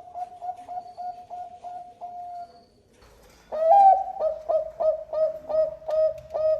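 Zebra dove (Bangkok perkutut) cooing: a run of quick, evenly spaced coos ending in a longer note, then after a short pause a new, louder phrase of repeated coos.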